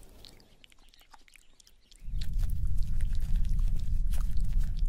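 Wet clicking and smacking sounds of a red kangaroo licking and grooming its belly and pouch. About two seconds in, a loud muffled low rumble starts, the dull sound of being inside the mother's pouch, with the clicks still over it.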